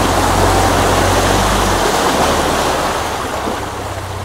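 A four-wheel-drive vehicle driving through deep mud and water: a steady rush of splashing mud and water over a low engine hum, easing off slightly toward the end.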